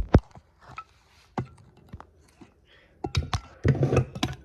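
Handling noise: a sharp click near the start, a few faint ticks, then a cluster of clicks and knocks in the last second and a half.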